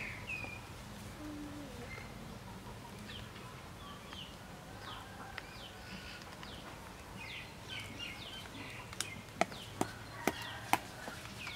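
Birds calling with short, quick, falling chirps over an outdoor background, and near the end a run of five sharp clicks about half a second apart.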